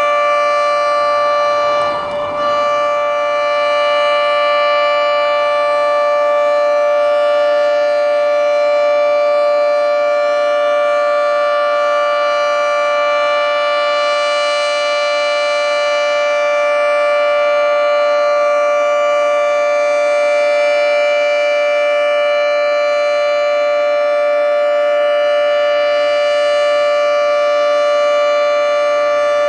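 Federal Signal 3T22 outdoor warning siren sounding a loud, steady three-tone chord during a test, with a brief dip about two seconds in.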